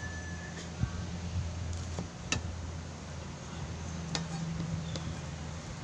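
A few separate sharp knife taps on a cutting board as an onion is sliced by hand, over a steady low hum.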